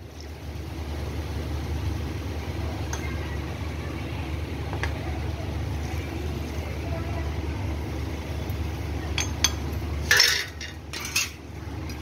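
Water poured from a steel bowl into a kadhai of fish curry, over a steady low rumble, with scattered clicks and then sharp metal clinks of the steel bowl and ladle against the kadhai about ten and eleven seconds in.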